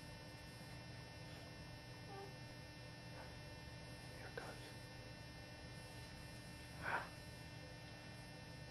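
Quiet room tone with a steady low electrical hum, broken by a faint short noise about four seconds in and a slightly louder brief one about seven seconds in.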